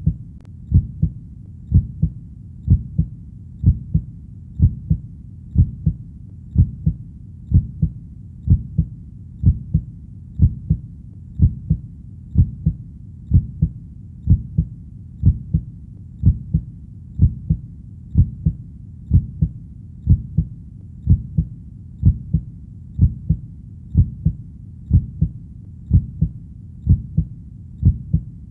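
Heartbeat: a steady rhythm of paired low thumps (lub-dub), about one beat a second.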